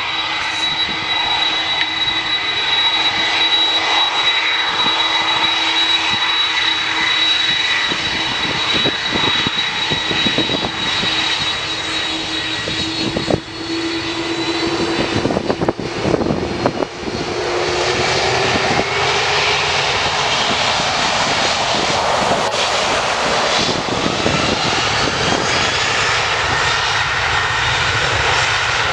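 Jet airliner's engines at takeoff power as it starts its takeoff roll: a steady high whine over a rushing noise, with a low tone that rises in pitch about halfway through, after which the sound grows fuller and noisier.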